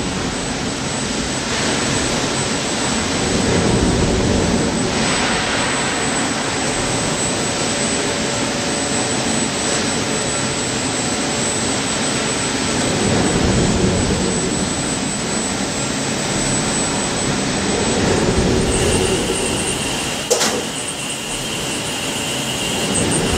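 Steady loud noise of factory machinery around a steel-coil feeding line. A thin high whine runs through it until about three quarters of the way in, then a different, lower whistle takes over, and a single sharp clank follows shortly after.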